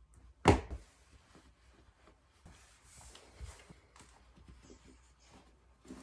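One loud sharp thump about half a second in, then soft rustling and a few light knocks and a duller thud from someone handling shoes and clothing while putting their shoes on.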